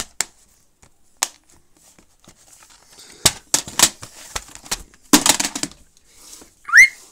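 Plastic DVD cases being handled: scattered clicks and taps with short bursts of rustling, busiest about five seconds in. Near the end, one short, loud rising whistle.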